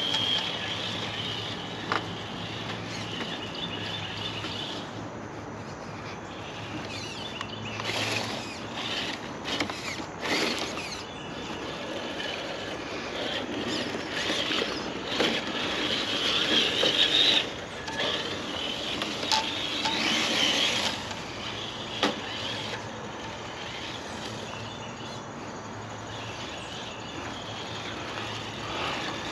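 1/10-scale RC rock crawler driving: its electric motor and geared drivetrain whine in stretches as the throttle comes on and off, with scraping, clicking and knocks from the tyres and chassis working over the obstacles.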